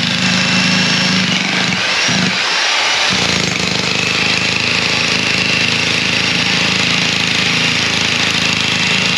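Electric demolition breaker hammering into the old concrete footing of a fence post: a loud, fast, even pounding that breaks off briefly about two seconds in and then runs on steadily.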